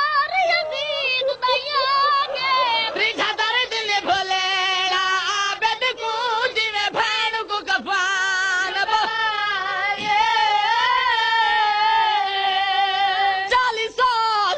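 High-pitched voice singing a Shia mourning lament (noha), unaccompanied, in long wavering melismatic lines, with one long held note shortly before the end.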